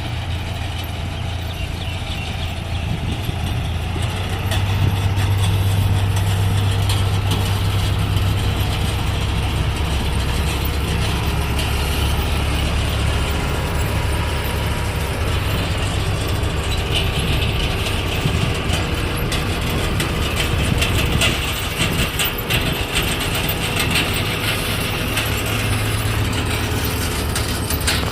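Engine of a rice-harvesting machine running steadily, with a low hum and a higher crackling hiss, getting louder about four seconds in.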